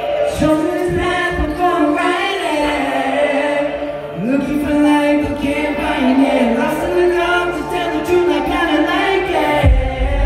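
Amplified live music: a sung vocal line with long held, bending notes over a backing track, with heavy bass coming in near the end.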